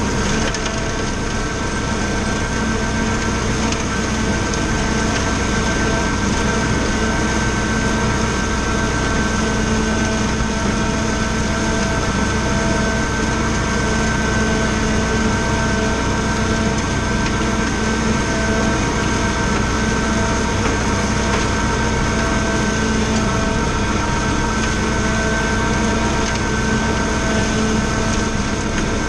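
Valtra A93 tractor's diesel engine running at steady working speed while it drives an Agrimaster KP 2600 flail mower cutting tall grass, with a steady high whine over the engine.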